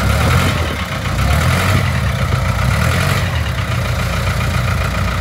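Side-by-side (UTV) engines running steadily at low revs, a continuous low rumble.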